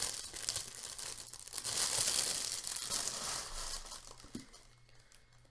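Wrapping being crinkled and torn open by hand, a busy rustling that dies away about four seconds in.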